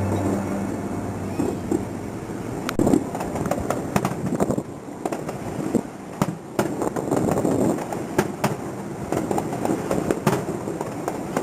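Fireworks display going off: a dense run of sharp pops and crackles, with several louder bangs among them.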